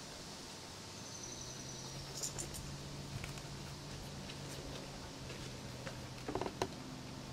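A moose calf browsing in a rose bush: faint snapping and rustling of leaves as it bites and chews, with a short cluster of sharp clicks about six seconds in. A low steady hum and a faint high whistle lie underneath.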